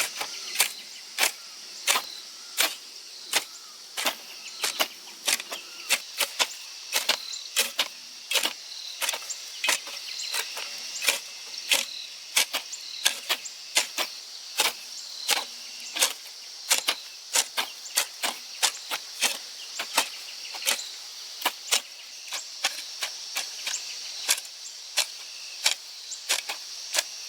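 Steady high insect drone with many sharp, irregular clicks, about two or three a second, that are the loudest thing throughout.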